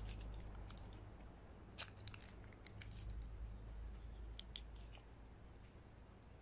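Faint crinkles and small ticks of paper truffle cases being pulled apart and handled, over a low steady rumble.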